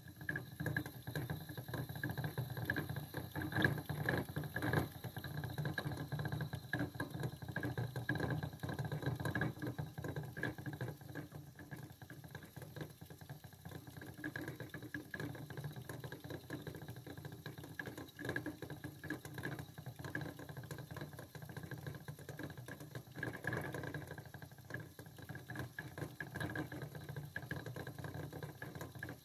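Chinese dwarf hamster running in a plastic exercise wheel: the wheel spins with a fast, steady rattle and a constant high whir, starting suddenly.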